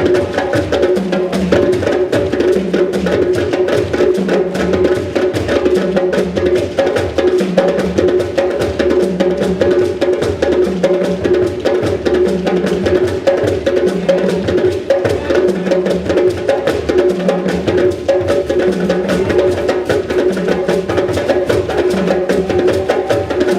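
Live drumming: a fast, dense run of hand-struck strokes, with a deeper stroke repeating about once a second under it.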